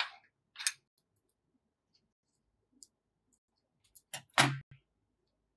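Small scattered clicks from handling craft materials on a tabletop, then a few sharp knocks about four seconds in, the loudest as a pair of scissors is set down on the table.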